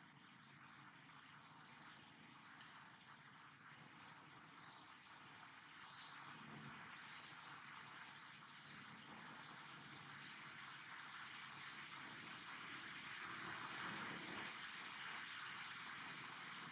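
A bird repeating one short, high, slightly falling call about every second and a half over a faint, steady background hiss of the forest.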